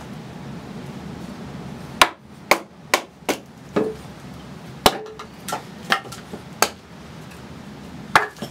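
A carving axe chopping into wood on a log chopping block: about ten sharp, irregularly spaced blows, starting about two seconds in.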